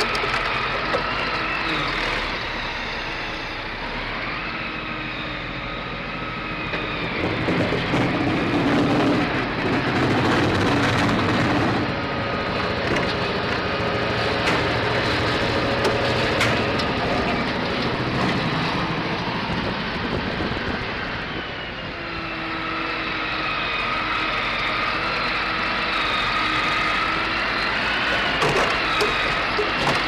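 Engine of a forestry machine with a hydraulic timber crane running steadily, with a whine that slowly rises and falls in pitch as it works. It grows louder for a few seconds about a third of the way in.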